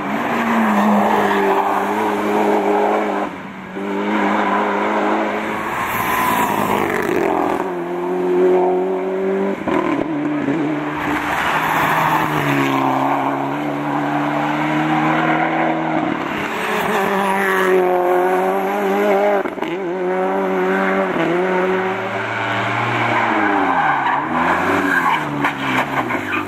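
Hillclimb race cars driven flat out one after another. Their engines rev high and the pitch climbs and drops again and again through gear changes, with tyre squeal in the corners.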